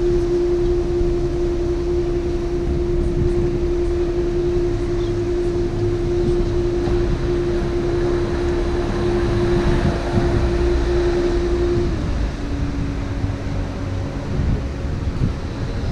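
Canal boat's engine running with a steady whine that drops slightly in pitch about twelve seconds in, over a low rumble.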